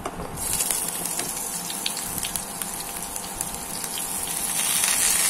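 Cut pointed gourd pieces tipped into hot oil in a wok, the oil sizzling with scattered crackles. The sizzle starts suddenly about half a second in and grows louder near the end.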